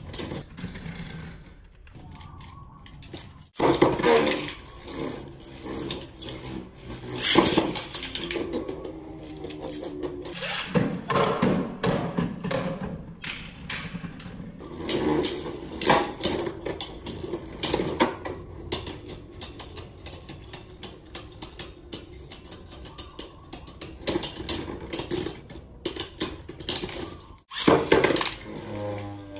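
Three Beyblade Burst Dynamite Battle spinning tops whirring and clashing in a clear plastic stadium: rapid, irregular clacks and rattles of the tops striking each other and the stadium wall.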